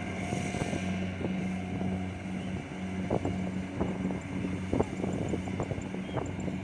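Kubota DC70 Plus combine harvester running with a steady engine hum, with scattered sharp clicks and knocks over it.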